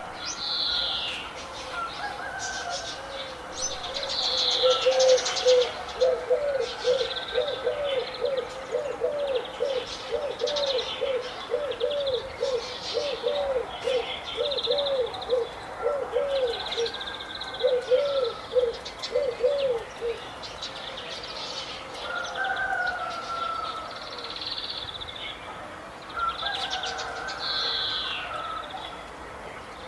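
Several birds singing and calling together, with many short high chirps and trills. Through the middle a low note repeats about twice a second, then stops.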